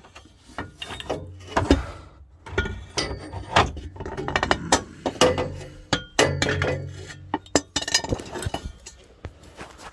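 Repeated metal clanks, knocks and clinks, some ringing briefly, as a driveshaft section is lowered from under the car and set down.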